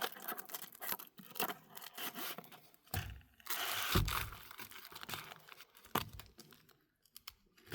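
Crinkling and rustling of plastic packaging being handled, with scattered sharp clicks and a soft thump about four seconds in.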